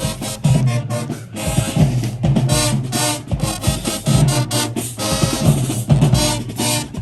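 High school marching band playing, with brass over a driving drumline of snares and bass drums.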